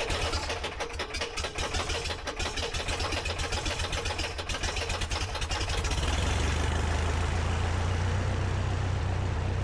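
1946 Aeronca Chief's four-cylinder air-cooled engine starting: it catches and runs unevenly in irregular pulses, then settles into a steadier, louder run about six seconds in.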